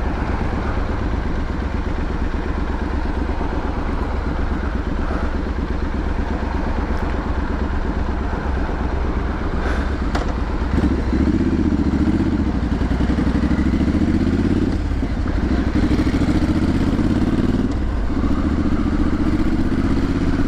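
Triumph Street Scrambler 900's parallel-twin engine and exhaust running under way, steady at first, then from about halfway pulling harder with its pitch rising and falling and short breaks between gears.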